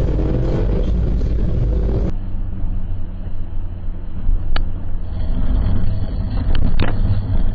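In-car dashcam sound of a car driving, a steady engine and road rumble. About two seconds in it cuts to a second car's dashcam with a duller, lower-quality rumble and a few sharp clicks.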